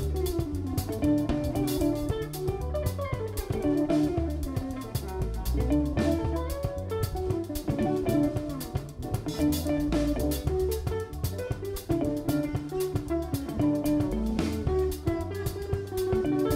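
Live instrumental band: two hollow-body electric guitars picking a melody over a drum kit and an acoustic bass guitar.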